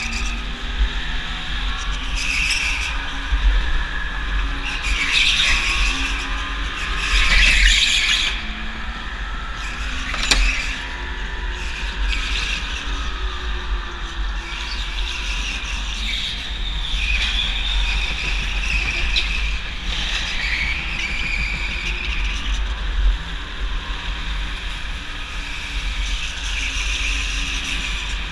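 Go-kart tyres squealing again and again as the kart slides through the corners of a smooth indoor track, loudest about eight seconds in, over a steady low rumble of the kart's vibration and wind on the kart-mounted camera.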